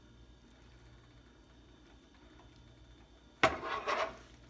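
A faint low hum, then about three and a half seconds in a sudden clank followed by a brief scraping clatter: a metal fork striking and scraping in a skillet of spaghetti.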